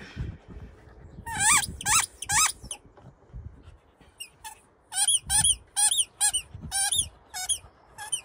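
Plush squeaky toy squeaking as a dog chews it: three short squeaks a second or so in, a pause, then a run of about nine more, roughly two a second. Each squeak wavers up and down in pitch.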